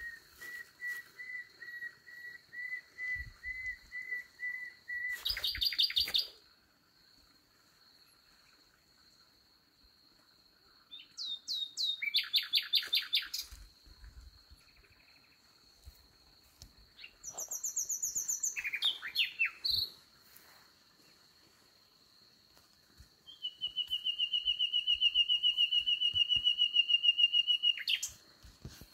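Nightingale singing at night in separate phrases with pauses between them. It opens with a run of repeated whistled notes that breaks into a loud, fast trill, and the last phrase is a long rapid trill of evenly repeated notes.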